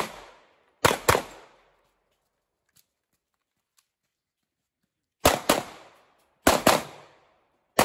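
Handgun shots fired in quick pairs, about a quarter second apart, each shot trailing off in a short echo. After the first pair there is a pause of about four seconds, then three more pairs follow in steady succession.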